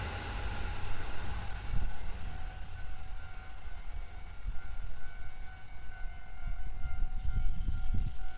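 Railway level-crossing warning bell ringing steadily as the noise of a passing train dies away, over a low wind rumble on the microphone.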